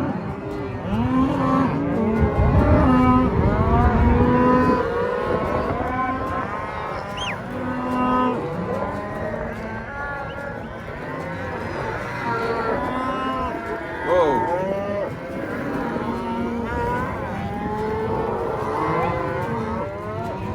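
A herd of cattle mooing, many calls overlapping one another, over a low rumble that is loudest about two to four seconds in.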